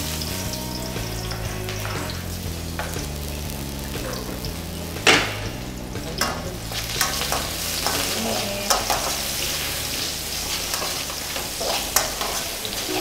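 Sliced shallots sizzling in hot oil in a carbon-steel wok, stirred with a slotted metal spatula. Sharp knocks against the wok stand out from the steady sizzle, the loudest about five seconds in.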